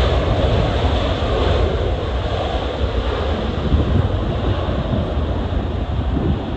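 Jet airliner engines rumbling steadily, with strong gusty wind buffeting the microphone.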